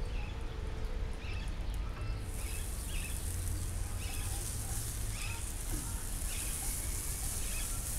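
Sliced sausage sizzling in a hot nonstick frying pan, the sizzle starting about two seconds in, with a spatula scraping and turning the pieces about once a second.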